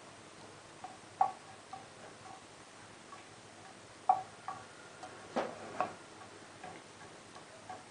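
Wooden spoon knocking and scraping against a nonstick frying pan while stirring fried almonds and pine nuts: irregular light taps, the loudest about a second in and again around four and five and a half seconds in. No sizzle is heard; the oil is not yet hot.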